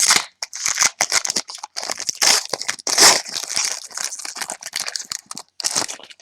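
Foil wrapper of a trading-card pack crinkling and tearing as it is opened, with the stiff cards rustling and clicking against each other in the hands. Irregular crackling throughout, with several louder crackles.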